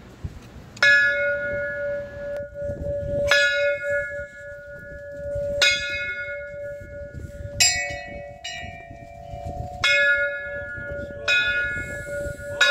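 A metal temple bell struck over and over, about every two seconds, each strike ringing on into the next. Between about seven and ten seconds in, a second ring of slightly higher pitch sounds alongside.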